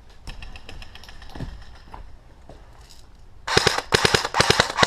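Airsoft gun firing a rapid burst of about ten shots a second, starting about three and a half seconds in, with fainter scattered shots before it.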